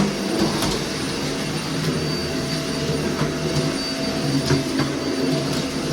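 Dyson vacuum cleaner running steadily, with a steady whine over the rushing noise and a few faint clicks.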